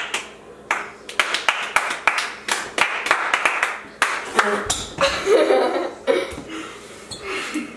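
Quick, repeated hand clapping, many sharp claps a second, mixed with laughing voices.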